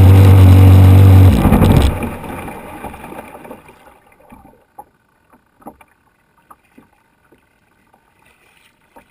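Radio-controlled boat's motor running steadily at a low idle, then cutting out about a second and a half in and fading away, followed by a few faint clicks and drips of water.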